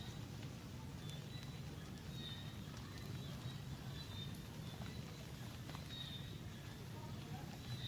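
Faint short, high chirps every second or so over a steady low hum, with a few light clicks.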